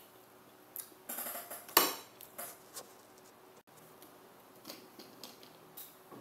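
Spoon and tableware clinking against a ceramic bowl and plates during a meal: a run of light clinks, one sharp louder knock about two seconds in, then scattered small clicks.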